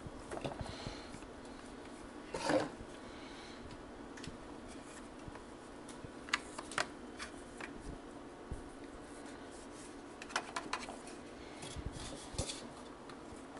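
Soft rubbing and handling of cookie dough being shaped by hand and set on a metal baking sheet, with scattered light clicks and taps and one louder brief scrape about two and a half seconds in.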